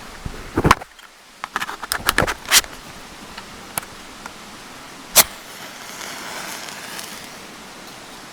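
A run of short knocks and clinks from small hard objects being handled, most of them bunched in the first three seconds, then a single sharp click about five seconds in.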